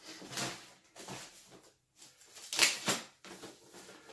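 Thin plastic bag rustling and crinkling as it is pulled off a computer, in several short bursts, the loudest a little past halfway.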